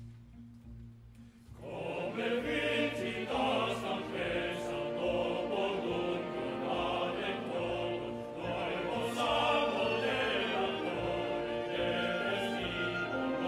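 Male opera chorus singing with an orchestra. After a soft, low held note, the full chorus and orchestra come in loudly about a second and a half in and carry on.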